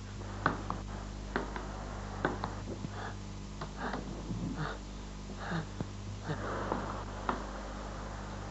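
Steady low hum with scattered sharp clicks, and a run of short breathy puffs a little under a second apart in the middle.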